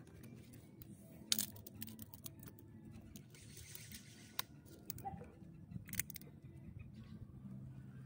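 Faint rustling and scattered small clicks of hands working at a nylon-line snare bound with palm-leaf strips on a coconut flower cluster, with one sharper click about a second in.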